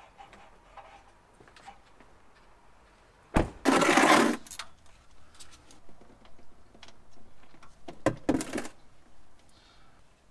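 Tools and parts handled under a truck during an oil change: faint clicks and handling noises, with two louder knocks, each followed by a short clatter, about three and a half and eight seconds in.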